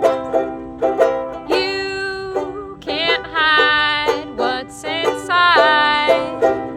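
A banjo-ukulele being picked in a steady rhythm of plucked notes. Three long, held vocal notes that bend in pitch come in over it.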